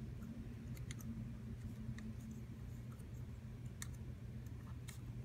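A few faint, scattered clicks of a thin metal pick touching the keyboard's circuit board as solder flux is dabbed onto a switch's solder joints ahead of desoldering, over a steady low hum.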